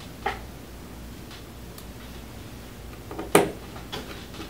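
A few light clicks of a small screwdriver and tiny screws being handled on a tabletop, with one sharp, louder click about three and a half seconds in as a screw is set down on the magnetic parts mat.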